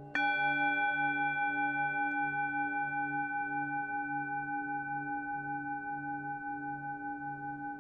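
Singing bowl tuned to D, struck once at the very start, then ringing on with a slow pulsing wobble as it fades gradually.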